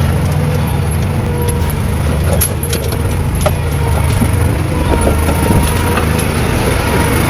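Small tractor's engine running steadily, with a few metallic clicks and rattles around two and a half to three and a half seconds in.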